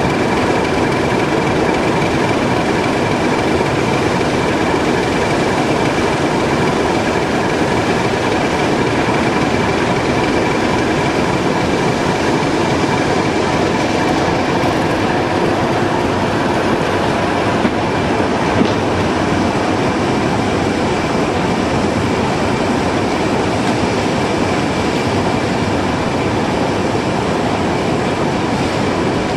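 Class 03 diesel shunter's Gardner eight-cylinder engine running steadily close by, with a steady high whine running through it.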